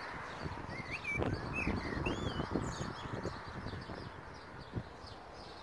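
Small birds twittering, with a few short wavering whistled notes about a second in, over the knocking of footsteps on a garden path.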